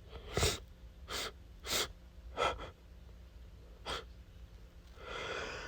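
A man's short, quick breaths, five in about four seconds, then a longer drawn-in breath near the end: the catching breaths of an allergy sneeze building up.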